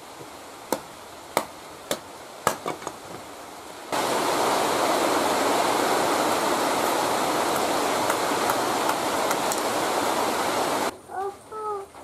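Curved sickle blade knocking into and splitting bamboo strips against a wooden block: five sharp knocks in the first three seconds. About four seconds in, a loud steady rushing hiss starts suddenly and cuts off about a second before the end.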